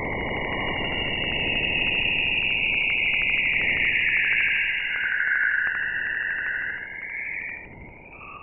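Spacecraft plasma-wave radio data played as sound: a steady hiss under a bright, wavering whistle-like band that slides down in pitch around the middle and breaks up near the end, with a fast, regular ticking running through it. It fades somewhat in the last second.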